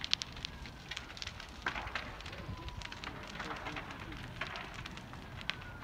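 Boat fire burning, crackling and popping in irregular sharp snaps over a low steady rumble.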